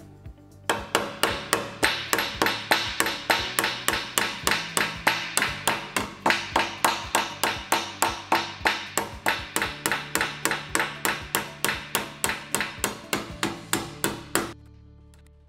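Hand hammer striking a sheet-metal panel edge, bending it over a clamped wooden die: a steady run of many small, even blows, about three or four a second. The blows start about a second in and stop suddenly near the end.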